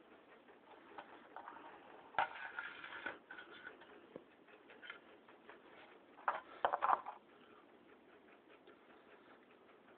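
Scattered light clicks and rustles of a radio-controlled car and the camera being handled on fabric, with two louder clusters of knocking and rustling about two seconds and six and a half seconds in.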